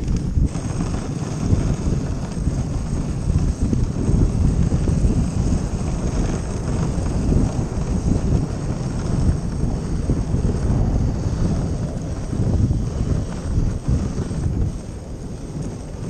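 Wind rushing on the microphone of a moving dog sled, with the sled's runners sliding over snow and the dog team running ahead.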